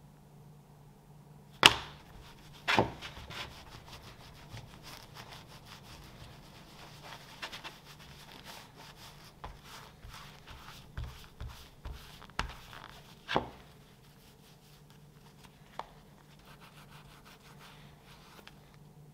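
Blue-gloved hand rubbing balm into a leather axe sheath: soft, irregular scrubbing with many small scratchy ticks. Two sharp knocks come about two seconds in and a third about two-thirds of the way through.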